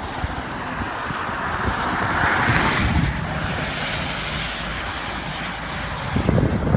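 Steady rushing noise that swells about two seconds in, with wind buffeting the microphone.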